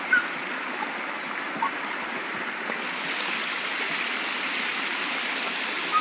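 Shallow creek water rushing steadily over small rocky cascades. A few brief high squeaks sound in the first two seconds.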